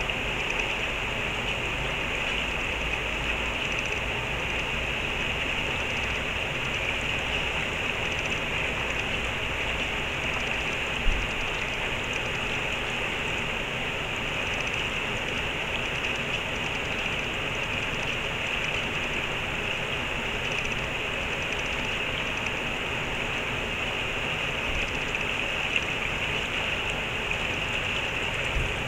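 Steady rushing of a stream's flowing water, with a single short thump about eleven seconds in.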